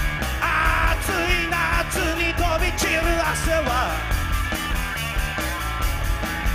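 Live rock band playing: electric guitar, bass and a drum kit, with a wordless yelled vocal over it in the first few seconds.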